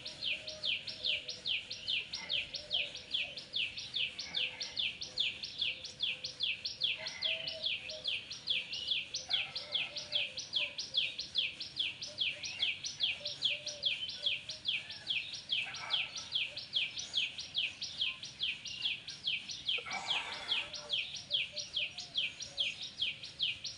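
A bird calling over and over: short, high chirps, each a quick downward sweep, repeated steadily at a little under three a second.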